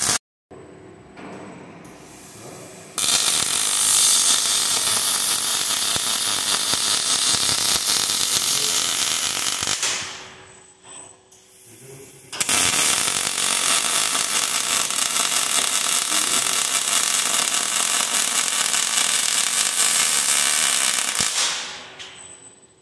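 KUKA robot's MIG welding arc on steel truss tubing, a steady crackling buzz in two weld runs: the first starts about three seconds in and stops around ten seconds, and the second starts about twelve seconds in and fades out near the end.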